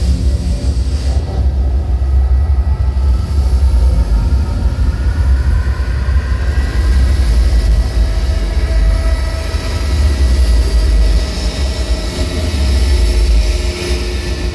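Loud dark electronic drone music played live over a large PA. A heavy, unbroken sub-bass rumble sits under faint, slowly gliding high tones and a hiss that swells in the second half.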